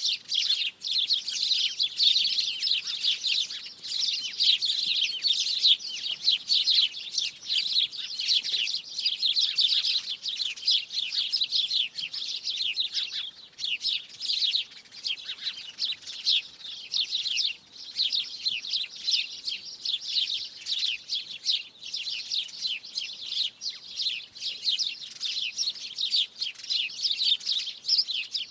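A flock of small birds chirping and twittering together in a tree: a dense, continuous chorus of quick high chirps.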